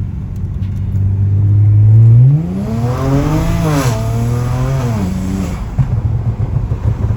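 Car engine on a custom remap with hybrid turbos, revving: a loud steady low note, then the pitch climbs for about a second and a half and falls away again.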